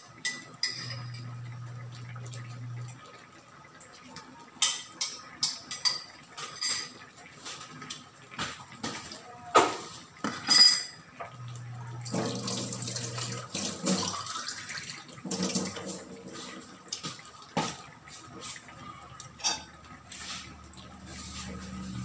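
Spoon and dishes clinking and clattering: a scatter of sharp clicks and knocks, busiest in the first half, with a wash of water-like noise through the second half.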